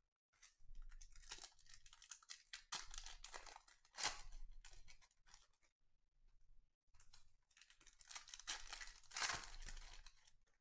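Foil trading-card pack wrappers crinkling and tearing as packs are opened, mixed with cards rustling in the hands, in two stretches with a lull of about two seconds in the middle.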